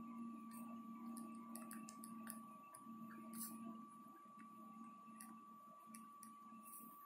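Faint scratching of a pen writing on paper, in short irregular strokes, over a steady low hum and a thin high whine.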